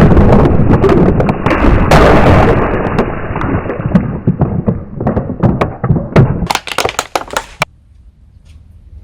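Loud crunching and cracking of objects being crushed, dense at first and thinning to scattered sharp cracks before stopping suddenly about three quarters of the way in.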